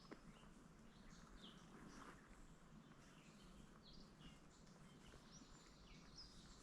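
Faint birds calling: scattered short, high chirps and little sliding notes every second or so over a near-silent background.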